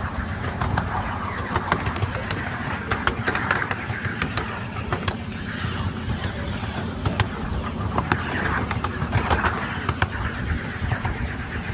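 7¼-inch gauge miniature train running along its track: a steady rumble with frequent irregular clicks and clatter from the wheels and rails.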